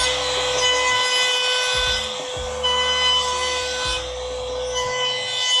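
Compact trim router running at full speed with a steady high whine, its half-round bit cutting along the edge of a pine board. The cutting noise dips and swells as the router is moved along the edge.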